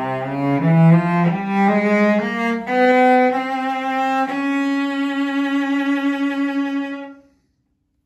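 Bench-made 1961 Lawrence Cocker 'Tertis Model' English cello played with the bow: a phrase of notes climbing in pitch, ending on a long held note that dies away about seven seconds in.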